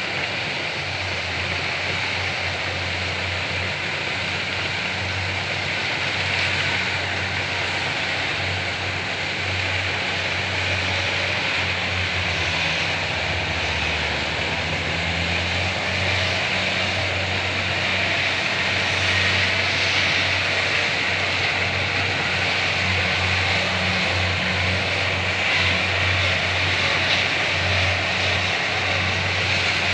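Kubota DC70 combine harvester's diesel engine running steadily, its low note dipping briefly about halfway through.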